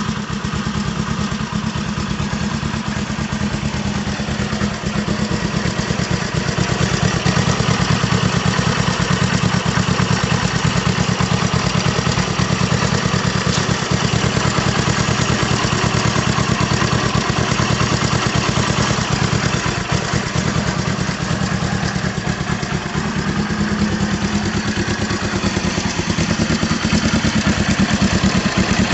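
1972 Honda SL350's air-cooled parallel-twin engine idling steadily, fired by a crank-triggered transistor ignition that replaced the original cam-triggered points.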